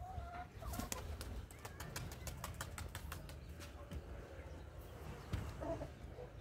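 Domestic pigeon's wings flapping as it is released and takes off, a run of quick faint wing claps over the first few seconds.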